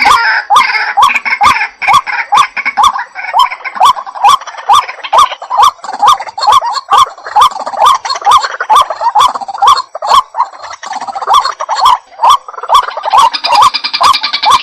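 Water hen (jal murgi) calling over and over, a loud croaking note repeated about twice a second, with sharp clicks between the calls.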